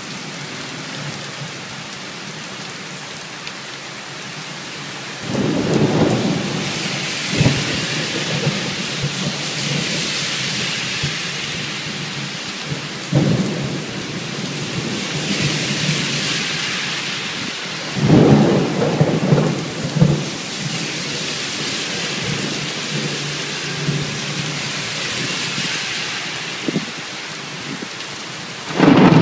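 Heavy downpour hissing steadily on pavement and a wet road, with water pouring off a roof edge. Thunder rumbles in again and again: a long peal about five seconds in, a sharp crack soon after, another peal around thirteen seconds, a loud rumble with a crack around eighteen to twenty seconds, and a new peal at the very end.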